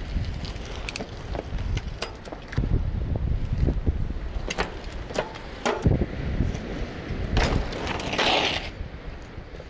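Low rumble with knocks and clicks as the camera is handled and set down on the concrete, then a hardtail mountain bike rides past about eight seconds in, with a short rush of tyre noise on the paved path.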